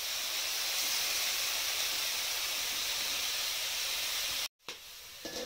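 Small dried fish sizzling in hot oil in an iron kadai, a steady hiss that cuts off suddenly about four and a half seconds in. A light clink follows near the end.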